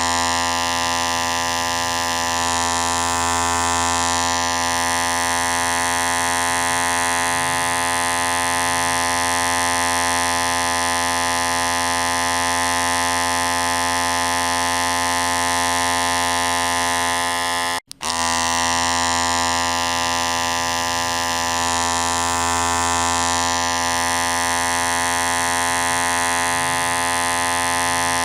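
Electric hair clipper running with a steady, vibrating buzz. It cuts out for an instant about eighteen seconds in and starts again.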